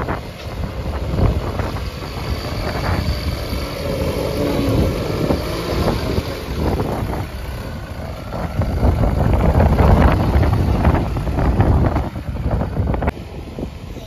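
Diesel engine of a Tata Hitachi Shinrai backhoe loader running under load while the front bucket pushes and scoops soil, getting louder about nine to eleven seconds in. Wind buffets the microphone.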